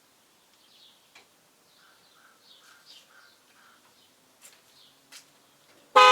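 Faint birds chirping, with a few light clicks. Right at the end a car horn blasts loudly.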